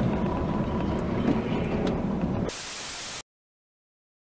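Steady low engine and road rumble inside a truck cab. About two and a half seconds in it gives way to a short burst of loud static hiss, then cuts off to dead silence.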